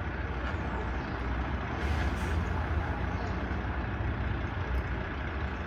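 Heavy truck engine running with a steady low rumble, and a short hiss about two seconds in.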